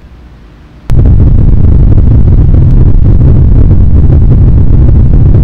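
A very loud, distorted low rumble that starts suddenly about a second in and holds steady, used as a dramatic sound effect over glitching visuals.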